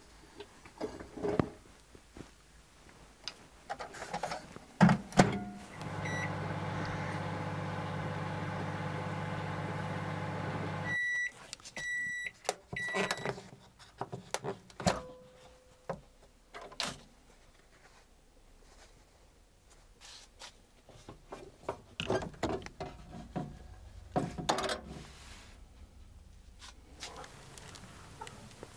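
Samsung microwave oven heating a ceramic-fibre kiln to melt brass: door clicks shut, the oven hums steadily for about five seconds, stops, and beeps three times. Then the door clicks open and the gloved hands knock and rustle as the hot kiln is handled.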